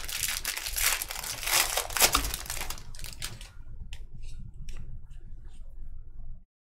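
Foil wrapper of a Bowman Draft baseball card pack being torn open and crinkled, densest for the first few seconds, then fainter crinkles and ticks as the cards come out. The sound cuts off suddenly near the end.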